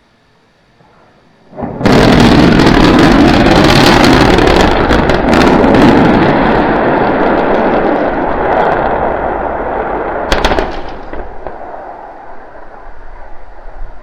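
SpaceX Starship prototype crashing and exploding on its landing pad: a sudden, very loud blast and crackling roar that goes on for several seconds, a second sharp bang about ten seconds in, then a fading rumble.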